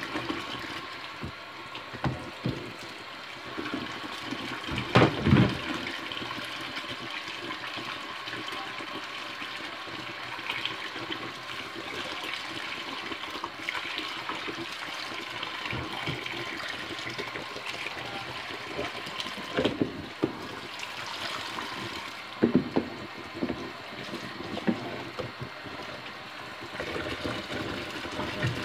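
Kitchen tap running steadily into a stainless steel sink, splashing into a green plastic bowl full of soapy water while a hand scrubs the bowl. A few louder splashes and knocks come about five seconds in and again about twenty seconds in.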